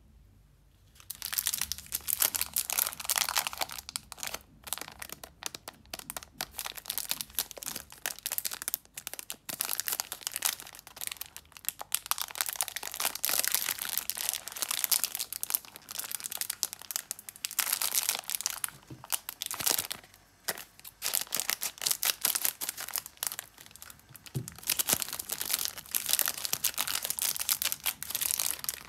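The plastic wrapper of a pack of rusks crinkles and rustles as hands squeeze and handle it, in stretches broken by short pauses. It starts about a second in, and near the end the pack is pulled open.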